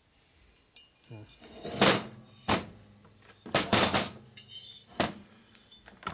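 A handful of sharp metal clinks and knocks, about five spread through a few seconds: a Harley-Davidson Milwaukee-Eight cylinder head with a valve spring in it being handled and turned over on a workbench.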